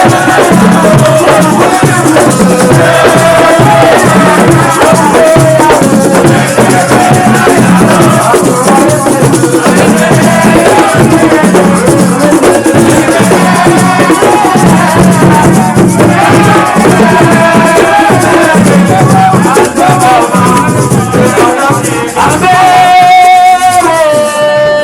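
Loud music with a steady beat and shaker-like percussion, with a held melodic line near the end.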